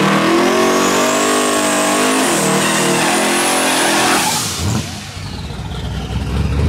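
Twin-turbo V8 of a box Chevy Caprice drag car running loudly as it rolls past at low speed, with a high whine from the turbos rising over the engine note. About four seconds in it drops away sharply as the car moves off, and a low steady hum builds near the end.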